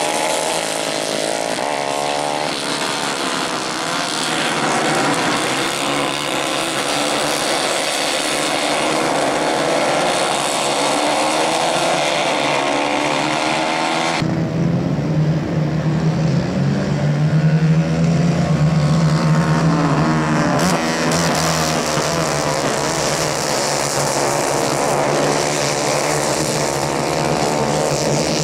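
Several racing kart engines running hard together, their overlapping notes rising and falling as the pack accelerates and lifts through the turns. The sound changes abruptly about halfway through, after which one steadier, deeper engine note stands out.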